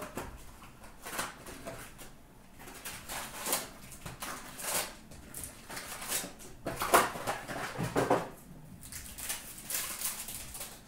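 A cardboard hobby box of trading cards being opened and its foil packs handled: irregular rustling and scraping of paper, cardboard and wrappers, loudest about seven to eight seconds in.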